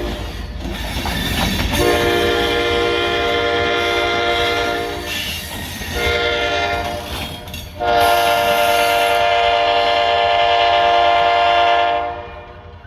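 Diesel freight locomotive's multi-chime air horn sounding two long blasts for a crossing, over the steady low rumble of the passing train.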